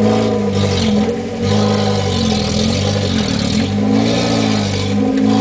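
Off-road 4x4's engine revving up and down again and again, its wheels spinning in deep mud while the truck stays stuck.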